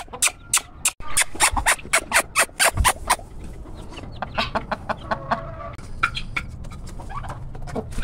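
Chickens clucking: a quick run of short clucks about a second in, then fewer and softer clucks.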